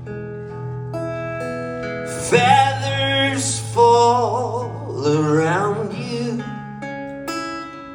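Acoustic guitar notes ringing out, with a man singing three long, wavering held notes over them from about two seconds in.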